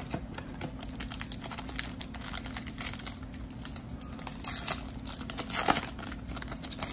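Foil trading-card pack crinkling and tearing as it is ripped open by hand, with the loudest crackle of foil near the end.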